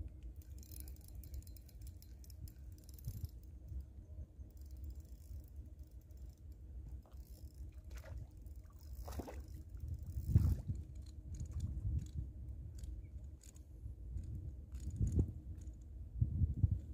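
A small hooked milkfish splashing at the pond's surface as it is played on the line, with scattered clicks and scrapes of the fishing rod and reel over a steady low rumble. The louder splashing comes in the middle and again near the end.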